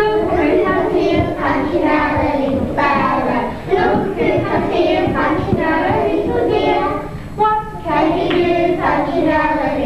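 A class of young children singing a song together.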